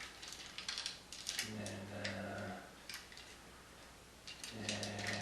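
Plastic parts of a Transformers Voyager Ratchet figure clicking and snapping as it is handled and transformed: a run of irregular sharp clicks. A short low hum comes in twice, about a second and a half in and near the end.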